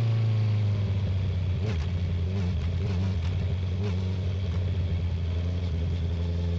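A 2019 Honda CB650R's inline-four engine, through an Akrapovic titanium full exhaust, running steadily at low revs. Its note eases down slightly at the start, then holds even.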